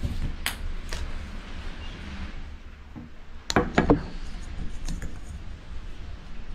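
Small plastic balls dropping into plastic cups and onto the table: a few light clicks, then a quick clatter of three or four hollow knocks about three and a half seconds in.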